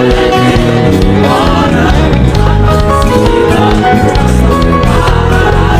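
Live gospel band music with a steady beat, bass and keyboard chords, and a sung melody line between the worship leader's call-and-response lines.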